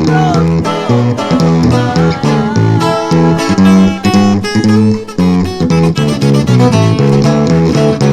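A small band playing an instrumental passage: a plucked lead guitar line with bent notes over strummed guitar and a bass line.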